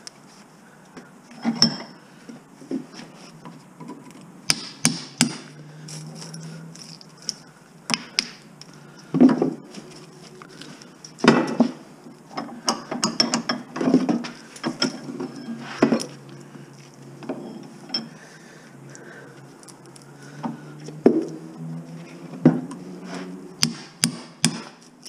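Irregular metallic knocks and clanks, some ringing briefly, in scattered clusters: hand tools striking and prying at a cut electric-motor stator to free its copper windings.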